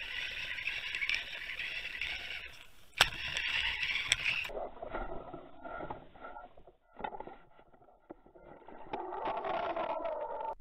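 Muffled rushing of water over an underwater camera as it is pulled through the water along a fishing line behind a lure, with a sharp click about three seconds in. About halfway through the sound turns duller and lower, and it drops out briefly a couple of seconds later.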